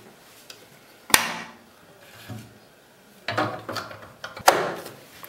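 Handling clicks from a Janome Green 19 sewing machine as the bobbin case is seated in the front-loading hook race and the plastic front cover is shut: two sharp clicks, about a second in and near the end, with softer knocks and rubbing between.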